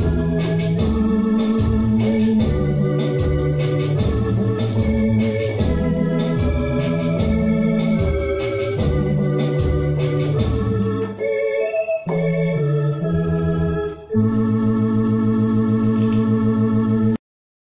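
Electronic keyboard playing an instrumental hymn tune in an organ voice over a steady beat. About eleven seconds in the beat drops out, and the tune closes on a long held chord that cuts off just before the end.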